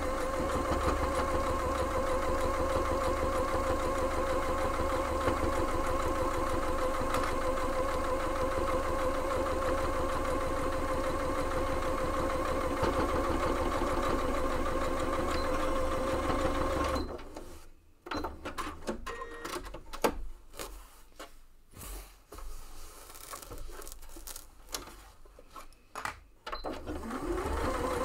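Electric sewing machine stitching steadily through layered cotton patchwork, its motor running with an even hum. The machine stops about two-thirds of the way through, leaving scattered light clicks and knocks. Near the end the motor starts again, rising in pitch back to its running hum.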